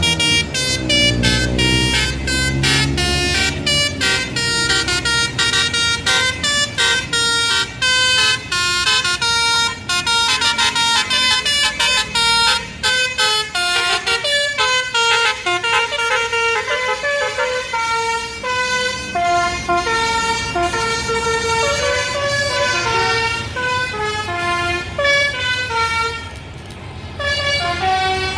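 Bus basuri melody horn, a 'telolet' horn, playing a long tune of quick notes that step from pitch to pitch. A low rumble sits under the first few seconds.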